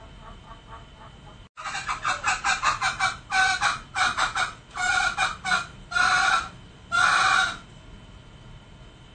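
Male green junglefowl calling: faint clucks, then from about one and a half seconds in a quick run of short clucking notes that breaks into a few longer calls, the last and longest near the end.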